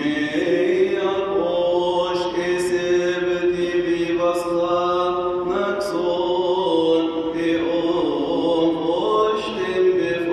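Coptic liturgical chant sung by a man's voice in long held notes that slide slowly from one pitch to the next, with short breaths between phrases.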